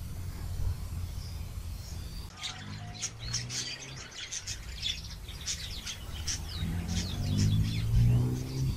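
Small birds chirping and tweeting in a quick run of short calls from about two seconds in, over a low hum that swells near the end.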